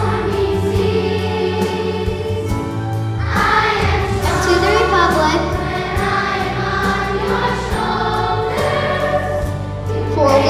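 Elementary school children's chorus singing a song in sustained notes over steady instrumental accompaniment.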